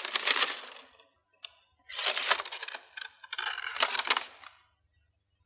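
Paper rustling and crackling as old letters are unfolded and handled, in three spells of a second or so each.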